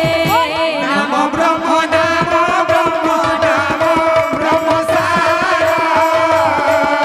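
Live Sambalpuri kirtan music: a woman singing through a microphone over quick strokes of a barrel drum and a steady held note underneath.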